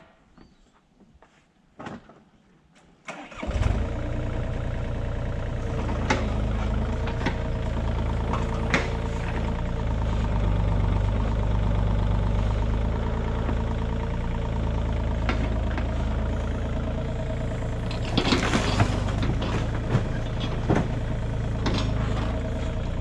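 Polaris utility vehicle's engine starting about three seconds in after a few footsteps and clicks, then running steadily at idle, with scattered knocks and a louder clatter around eighteen seconds in.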